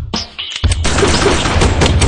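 Rapid automatic gunfire over action music. A few sharp shots come in the first half second, then the firing turns into a dense, continuous barrage.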